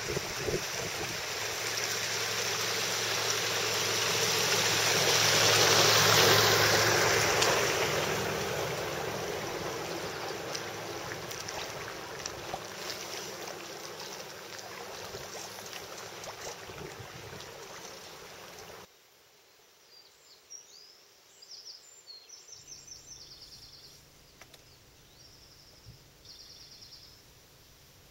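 Water rushing and wind noise aboard a sailing yacht under way, swelling to its loudest about six seconds in as another sailing boat passes close by, then slowly fading. About nineteen seconds in it cuts to a much quieter stillness with a few faint high chirps.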